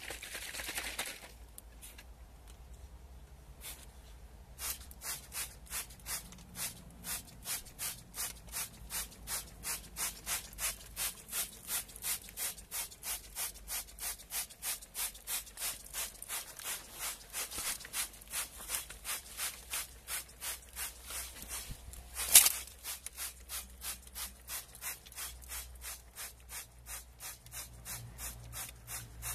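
Hand trigger spray bottles being pumped rapidly, a short spritz about three times a second, spraying chemical copper-plating solution. The spritzing starts about five seconds in, and one sharp knock comes about two-thirds of the way through.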